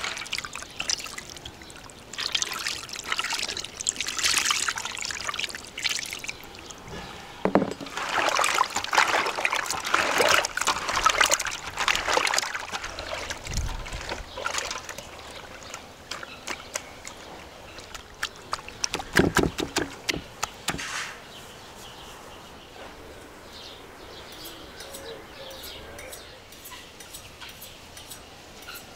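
Tomato juice poured from a glass jug onto raw fish in an enamel bowl, then repeated wet squelching and sloshing as the fish are mixed by hand in the juice. A short cluster of sharp knocks comes about two-thirds of the way through, and it is quieter near the end.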